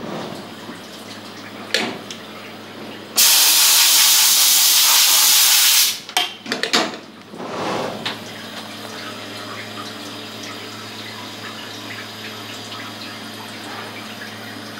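Haas Minimill CNC mill running with a steady hum inside its enclosure, with a few sharp clicks. About three seconds in, a loud hissing spray starts, lasts about three seconds, and breaks into sputtering bursts before the steady machine noise carries on.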